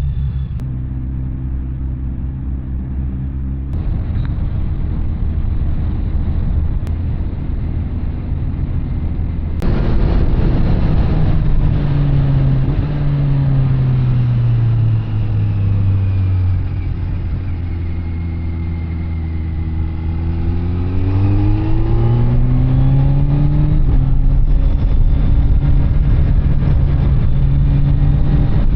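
Kawasaki Z900 SE's inline-four engine through an SC Project CR-T carbon exhaust, running at steady revs. From about ten seconds in the revs slowly drop and hold low, then climb back up around twenty seconds in and settle steady again.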